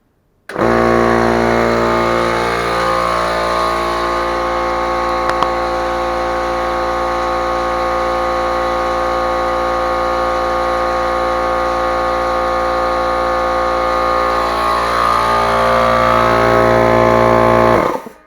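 A 20-gallon oilless air compressor starts abruptly about half a second in and runs steadily, then stops abruptly near the end.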